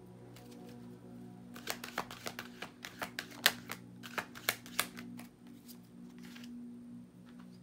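A deck of tarot cards being shuffled by hand: a quick run of card clicks and slaps for about three seconds, loudest about halfway through. Quiet background music with steady held tones plays underneath.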